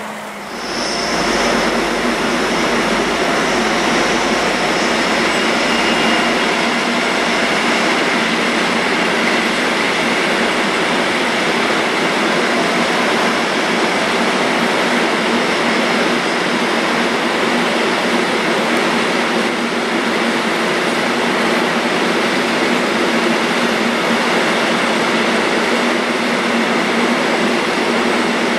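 Freight train headed by a class 231 diesel locomotive passing close by: a loud, steady rolling of wagon wheels on the rails, rising sharply in the first second and then holding level.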